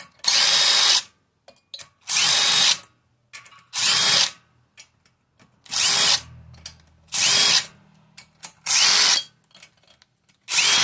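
Cordless Craftsman 20V impact driver run in about seven short bursts of under a second each, each starting with a brief rising whine. It is loosening the bolts of a small engine's cylinder head.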